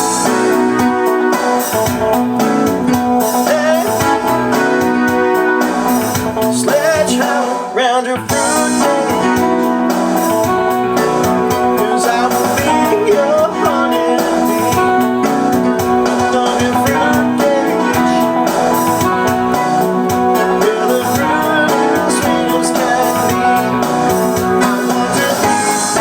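Music: a sequenced keyboard backing track played from a Roland E-500's floppy-disk sequencer, with piano played along over it. There is a brief drop in the music about eight seconds in.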